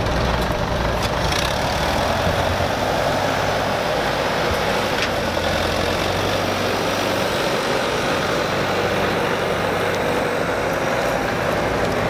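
Engines of a 1977 Gleaner M2 combine and an Allis-Chalmers tractor running steadily together. The tractor is pulling a loaded grain wagon away from the combine.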